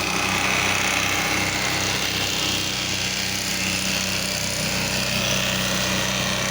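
Pressure washer's gas engine running steadily, with the hiss of a spray wand putting down cleaning solution to pre-treat concrete.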